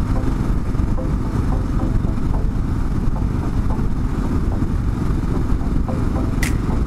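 Kawasaki KLR 650's single-cylinder engine running steadily while riding, mixed with wind rush. A single sharp click comes near the end.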